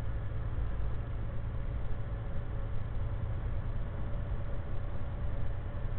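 Volvo semi truck driving at steady speed, heard inside the cab: a steady low engine drone and road noise, with a faint steady tone above it.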